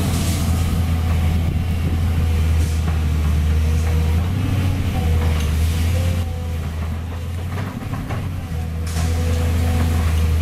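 Volvo EC210B excavator's diesel engine running steadily under working load, easing off for a couple of seconds after the middle, then picking up again. A few short knocks of debris sound over it as the bucket digs.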